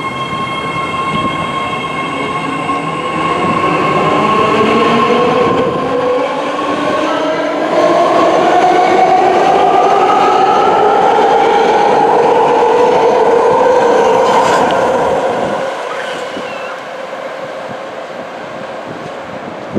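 BART Bombardier D car train pulling out and accelerating: the electric traction motors' whine climbs steadily in pitch over the rumble of wheels on the rails. The sound drops away after about fifteen seconds as the train leaves.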